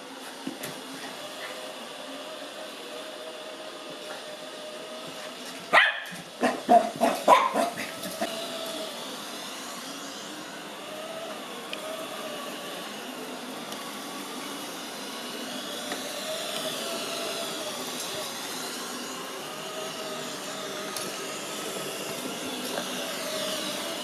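Ecovacs Deebot robot vacuum running steadily on carpet. About six seconds in, a Lhasa Apso puppy gives a quick string of about six sharp barks.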